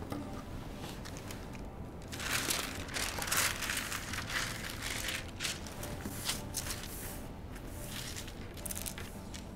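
Sheet of tracing paper rustling and crinkling as it is handled and smoothed flat on a desk, a run of short swishes beginning about two seconds in and tapering off toward the end.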